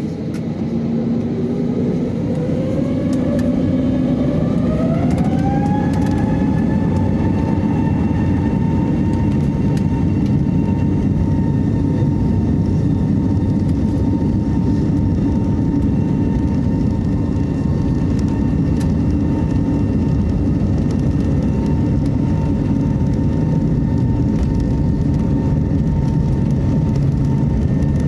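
Airbus A320neo's CFM LEAP-1A turbofan engines spooling up to takeoff thrust, heard from inside the cabin. The engine whine rises in pitch over the first several seconds and then holds steady over the loud rumble of the takeoff roll.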